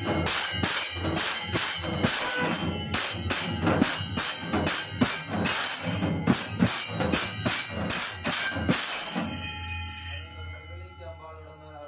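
Temple percussion: a stick-beaten barrel drum and pairs of brass hand cymbals clashing together in a quick steady beat of about three strokes a second. The playing stops about nine seconds in, leaving a faint voice.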